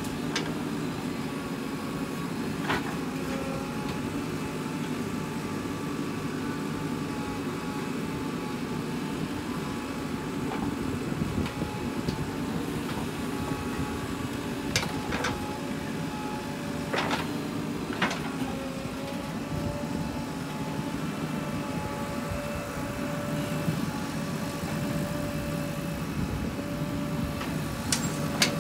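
JCB 3DX backhoe loader's diesel engine running steadily under working load, with a tone that rises and falls in pitch as the boom and bucket move. A few short sharp knocks come as the bucket digs and dumps soil into a tractor trolley.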